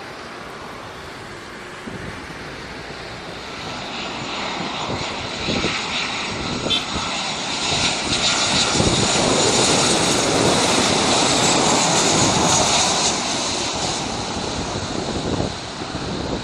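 Boeing 737 jet engines on final approach. The steady roar and whine grows louder as the airliner closes in and passes, is loudest through the middle, then eases a little as it descends toward the runway.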